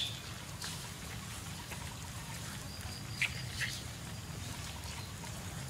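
Outdoor ambience with a steady low hum and a few short, high animal chirps: one at the start and two close together a little past the middle.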